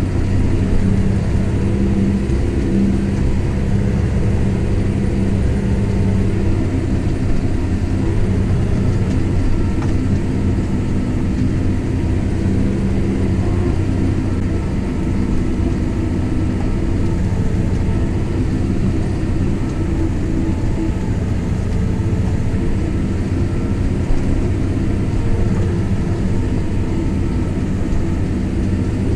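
Kubota M7172 tractor's four-cylinder diesel running at a steady pitch under load while pulling a plough, heard inside the cab as an even low hum.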